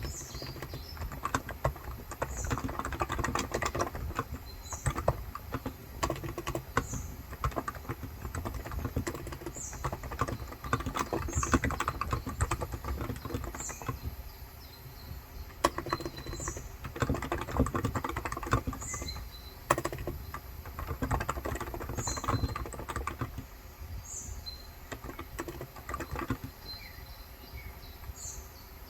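Typing on a COX Endeavor 35 g electro-capacitive tenkeyless keyboard: steady runs of soft key presses, thinning out somewhat near the end. A bird repeats a short high chirp every two to three seconds behind it.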